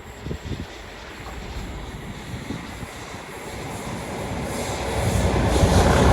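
Diesel-hauled freight train approaching, its engine and wheel rumble growing steadily louder through the second half.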